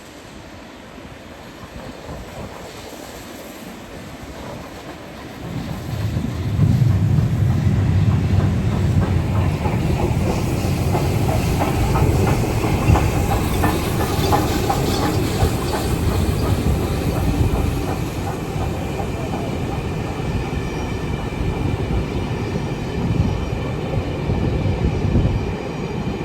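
LNER B1 steam locomotive working hard under an open regulator, its exhaust beats coming in loud about six seconds in as it passes. They are followed by the train's wheels clattering over the rails.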